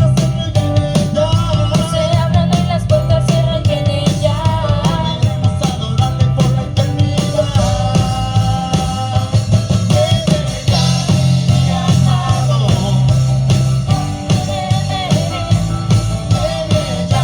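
Church band playing an upbeat song live, with a singer, drum kit and bass guitar, amplified through the PA during a sound check.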